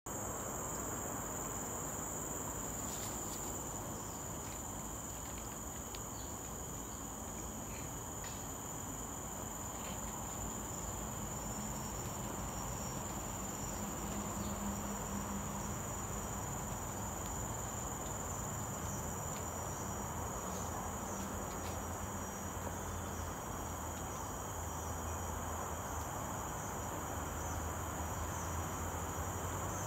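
Steady, high-pitched chorus of crickets trilling without a break, with a few faint ticks.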